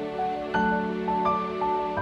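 Background music: held chords under a slow melody of single notes that change a few times a second.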